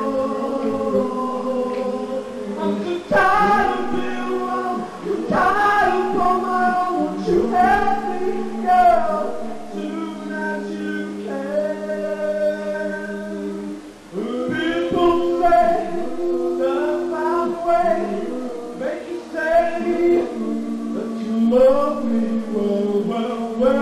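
Male vocal group singing a cappella in close harmony: several voices hold chords under a moving melody line, with a short break about 14 seconds in.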